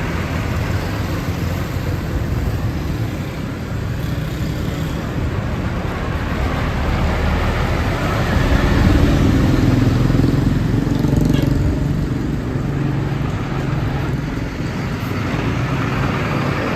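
Road traffic with a heavy vehicle's engine running, growing loudest about halfway through and then easing off, as if passing close by.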